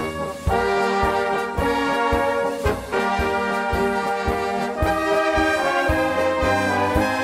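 Brass band playing a tune, brass melody over a steady beat of about two beats a second.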